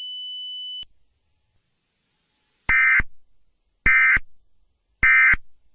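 A steady high electronic tone cuts off about a second in. Then come three short, identical buzzy data bursts about 1.2 s apart: the Emergency Alert System's SAME end-of-message code, which marks the close of the alert.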